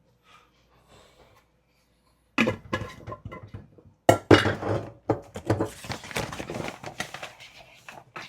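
Kitchen dishes and utensils clattering: sharp knocks begin about two seconds in, the loudest comes about four seconds in, then a quick run of clinks and scrapes.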